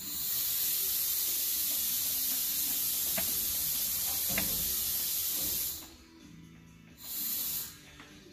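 Compressed air hissing through a truck's air-ride suspension as it is cycled from an air hose: one long hiss of nearly six seconds that cuts off sharply, then a shorter burst about seven seconds in.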